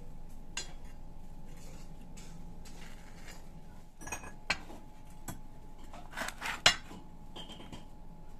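Scattered light clinks and knocks of steel tube and bar being handled on a work surface, the sharpest about halfway and two-thirds through, one of them leaving a brief metallic ring near the end.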